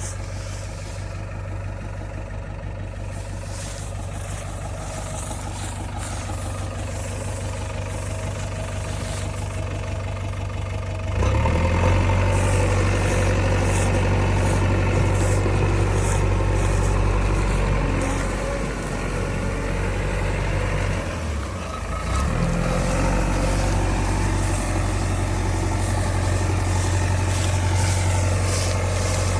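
Heavy diesel engine of earthmoving or farm machinery running steadily at a low idle-like hum, then louder and harder under load from about eleven seconds in. It eases off briefly around 18 to 22 seconds, then runs hard again.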